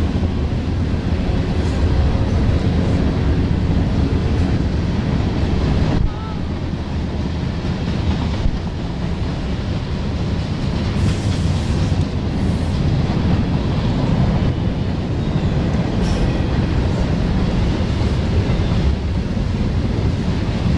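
Freight train passing, with the steady, heavy low rumble of its cars rolling by.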